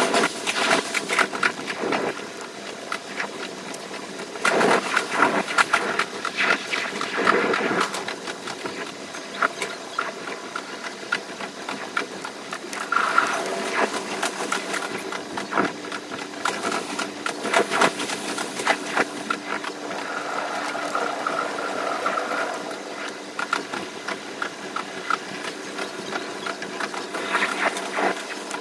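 An electric limited-express train running on the rails, its sound sped up and pitched high. Stretches of rapid clattering from the wheels over the track alternate with a steady whine.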